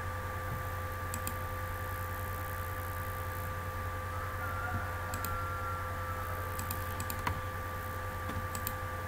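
A few scattered computer keyboard clicks, mostly in quick pairs, over a steady low electrical hum with a faint steady whine.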